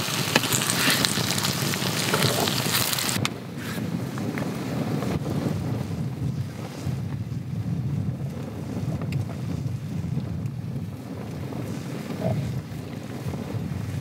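Chicken sizzling in a black iron pan over a campfire for about three seconds, cut off suddenly, then a steady low rumble of wind on the microphone with a few faint clicks.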